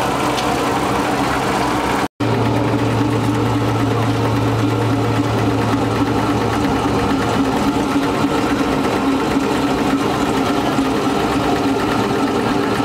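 Disc wood chipper running with a steady mechanical hum, cutting out for an instant about two seconds in.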